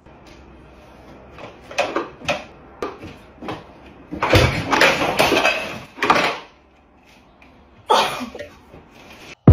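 Handling noises from a person climbing onto and working on a stripped-down motor vehicle: a run of scattered knocks and clicks, then a heavy thump followed by a longer rustling, scraping stretch a little past the middle, and another short rustle near the end.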